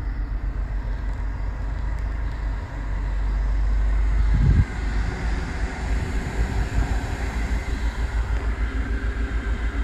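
A newly fitted replacement heater blower fan in a 2019 Skoda Superb, running and pushing a steady rush of air out of the dashboard vents. It runs with no rattle or grinding: the fresh motor has cured the old one's noise. A low, rapid pulsing rumble sits underneath, and the rush swells briefly midway before dropping back.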